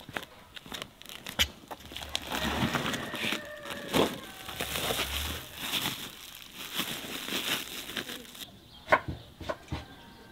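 Woven plastic feed sacks rustling and crinkling as they are carried and handled, with footsteps and scattered clicks. The rustling is densest through the middle and stops sharply, leaving a couple of knocks near the end.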